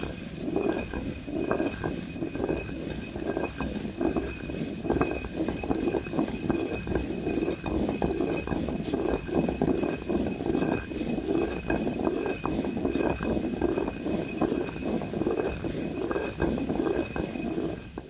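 Basalt stone hand mill (quern) being turned by its wooden handle: the upper millstone grinds against the lower one with a continuous gritty rasp and many small clicks as grain is milled into meal.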